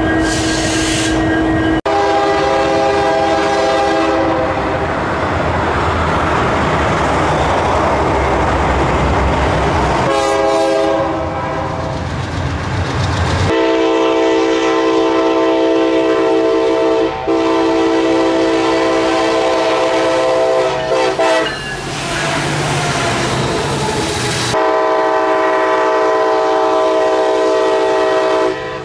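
Diesel freight locomotive air horns sounding long chords, several different horns one after another. Between them, for several seconds, the steady rumble and rail clatter of a train passing. The longest horn blast, about ten seconds, comes in the second half with two brief breaks.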